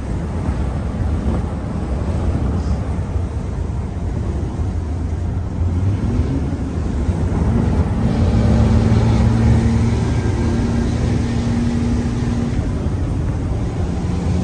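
Truck's diesel engine running at high revs on the road, heard from inside the cab. About six seconds in, its pitch rises, then holds steady for several seconds.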